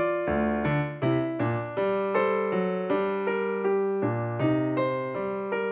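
Background piano music: a melody of single notes struck at an even pace, each ringing and fading before the next.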